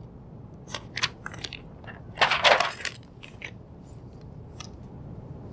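Faint handling noise at a lectern: a few light clicks and a short rustle of paper about two seconds in, as the presenter's script pages are handled.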